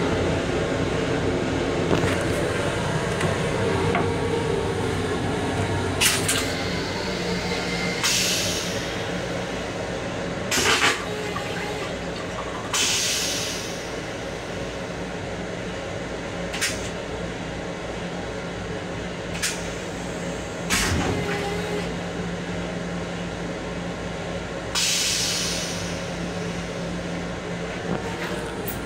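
Flush cycle of an MTA Long Island Rail Road M7 railcar's stainless steel toilet: several short hissing rushes and a steady hum from about eight seconds in, with a few sharp clicks and knocks. Under it all is the constant rumble of the railcar.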